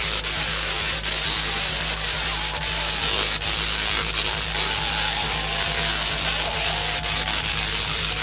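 Large Tesla coils firing without a break: the loud, steady, buzzing crackle of high-voltage electric arcs, with a low hum underneath.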